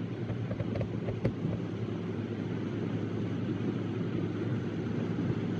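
A John Deere 9660 STS combine harvesting corn, its six-cylinder diesel and threshing machinery running under load, with a John Deere tractor and grain cart running alongside: a steady, even engine drone. A few faint clicks come about a second in.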